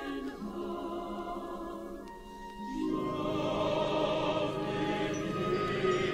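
Background music in a choral, operatic style: sustained sung tones over instruments. It thins out briefly about two seconds in, then swells louder from about three seconds.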